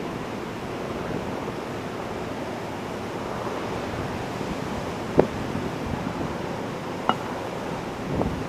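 Ocean surf breaking steadily on the beach, with wind on the microphone. Two brief sharp knocks stand out, one about five seconds in and a smaller one about seven seconds in.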